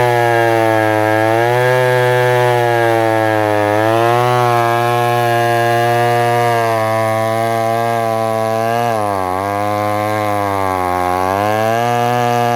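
Echo CS-302 30cc two-stroke chainsaw running at high revs while cutting a thick log. Its pitch sags several times as the chain bites into the wood, most deeply about nine and eleven seconds in, then climbs back.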